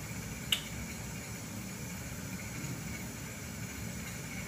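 Steady low room hum, like ventilation or equipment noise, with a single sharp click about half a second in.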